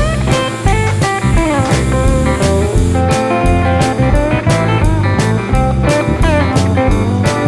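Background music: a blues-style electric guitar playing bending notes over bass and a steady drum beat.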